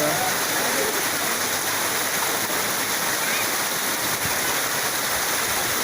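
Steady rush of a waterfall and its falling, churning water.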